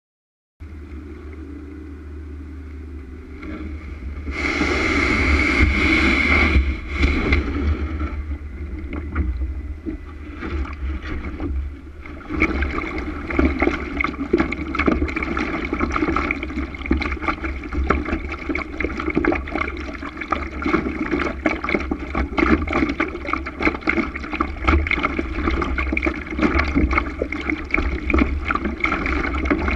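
Water slapping and rushing along a Laser sailing dinghy's hull, with wind buffeting the bow-mounted camera's microphone as a constant low rumble. A louder rush of noise comes a few seconds in, and from about halfway through the water sound turns choppier, with many small splashes.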